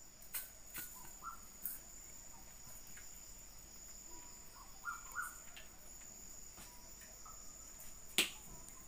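A steady high-pitched cricket trill in the background, with a few light clicks and taps of stainless steel bowls as dry flour mix is tipped from one bowl into the other; the sharpest tap comes near the end.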